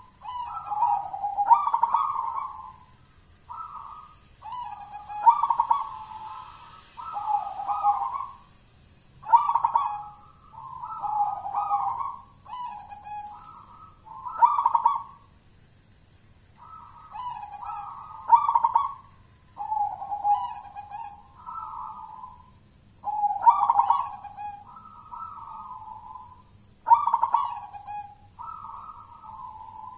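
A local zebra dove (perkutut) singing, repeating its cooing phrase every few seconds. Each phrase opens with a sharp loud note and runs into a rolling series of coos.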